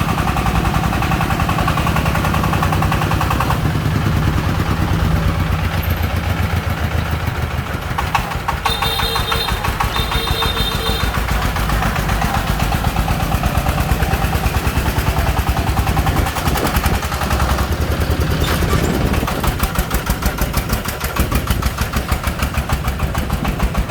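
Single-cylinder diesel engine of a công nông three-wheeled truck (a '24' engine) running steadily with a rapid, even chugging. Two short high tones sound about nine and ten seconds in.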